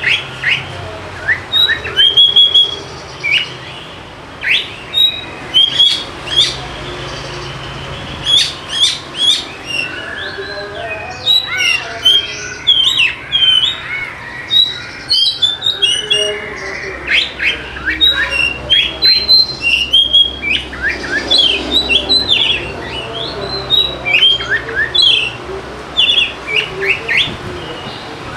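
Oriental magpie-robin (kacer) singing energetically: a continuous, rapid, varied string of short, sharp whistled and chattering notes.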